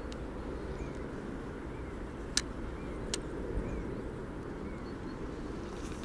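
Steady low outdoor rumble, with a small bird giving faint short chirps about once a second and two sharp clicks a little past the middle.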